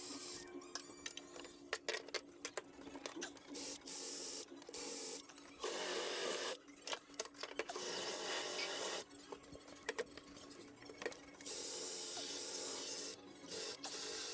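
Fast-forwarded work sounds from stripping and cleaning a car floor. Hissing stretches of a second or two, like spraying or vacuuming, alternate with quick clicks and rattles over a faint steady hum.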